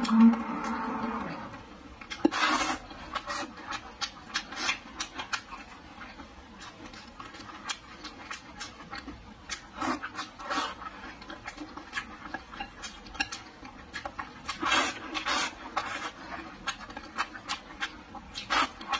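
Close-up eating sounds: chewing and smacking on braised pork belly and rice, mixed with wooden chopsticks clicking and scraping against a ceramic bowl, in many short sharp clicks with pauses between.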